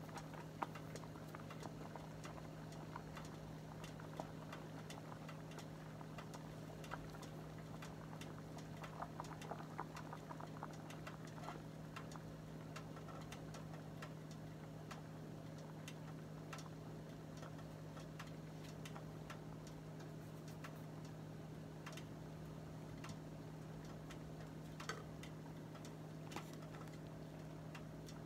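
Tofu soup boiling in a stainless steel pot, with faint scattered pops and ticks of bursting bubbles over a steady low hum.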